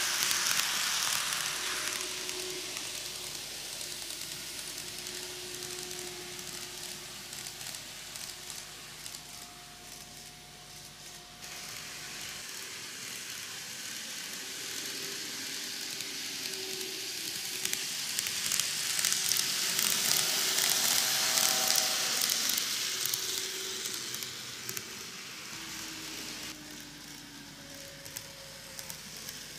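KATO N gauge model of a JR Shikoku N2000 series train running on TOMIX superelevated curved track: a steady rolling hiss of small metal wheels on the rails with a faint whine. It is loudest as the train passes close by at the start, fades, then swells again around twenty seconds in before dropping off near the end.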